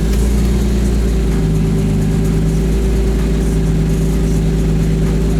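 Nissan Laurel's engine running steadily at low revs, a continuous even hum.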